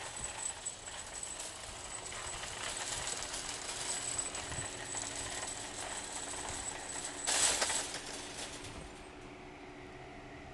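Parking-lot traffic noise: a vehicle going by in a steady rush that swells and fades, with a short louder burst of noise about seven seconds in.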